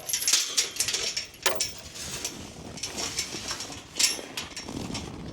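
Footsteps crunching over frozen ground: a string of irregular crunches and scuffs, busiest in the first second.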